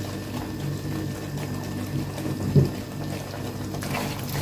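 Fettuccine in a creamy white sauce cooking in a pan on the stove: faint wet, liquid sounds over a steady low hum, with one short louder sound a little past halfway.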